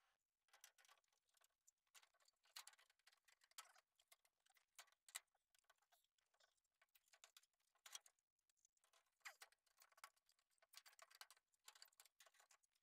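Faint, irregular clicks and light scraping from an AprilAire Model 700 humidifier housing being handled and fitted against sheet-metal ductwork.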